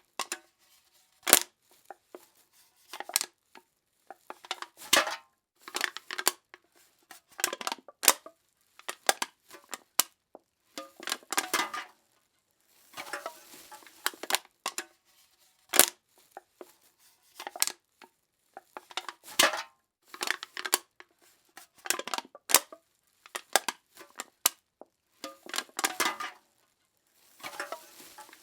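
Aluminum cans being crushed, over and over: a run of separate crackling crunches and sharp metallic pops, each followed by a short silence.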